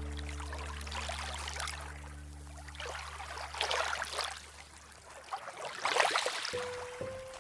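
Background music at a transition: a held low chord fades out under swells of water-like noise, and new sustained notes begin near the end.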